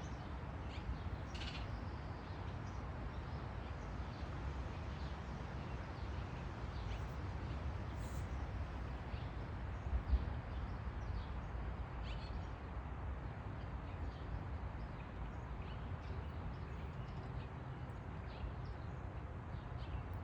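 Steady background noise with a low rumble and faint short bird calls now and then. A brief low bump about halfway through.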